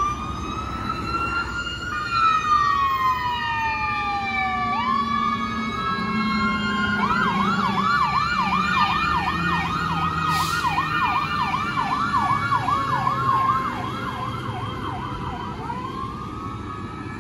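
Emergency vehicle electronic sirens, an ambulance's among them: a slow wail rising and falling, switching about seven seconds in to a fast yelp of about three cycles a second, which gives way to the wail again near the end. A vehicle engine runs underneath.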